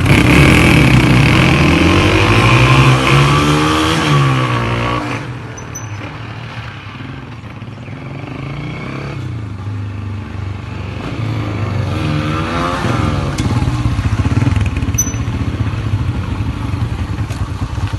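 Honda CG125 single-cylinder four-stroke motorcycle engine being revved up and down, then settling to a lower, steadier run about five seconds in, and revved up again near the two-thirds mark.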